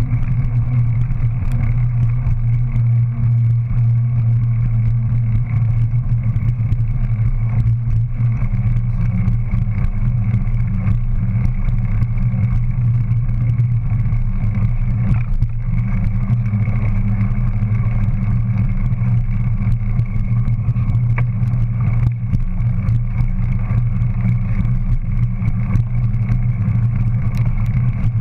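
Steady low drone of a bicycle's rear tyre rolling along a concrete footpath, picked up by a camera mounted behind the rear wheel, with a few faint clicks and knocks over the path.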